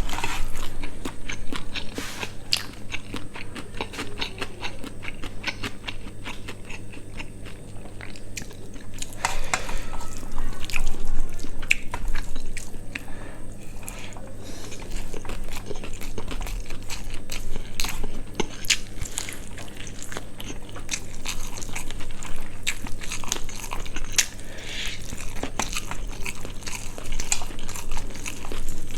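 Close-miked eating of spicy quail curry with rice: wet chewing, biting and crunching with many small rapid clicks and crackles. A steady low hum runs underneath.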